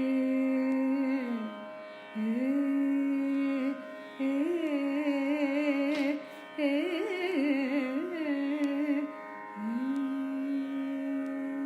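A woman singing a wordless Carnatic vocal line: long held notes with ornamented pitch swings and short pauses, over a steady drone.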